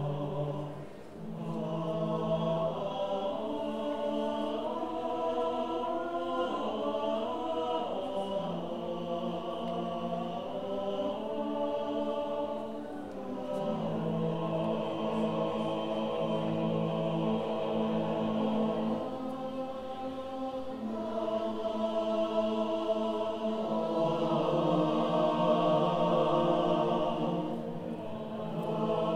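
Male chorus singing a solemn, slow unaccompanied piece in long held chords, with brief breaks between phrases, in an echoing hall.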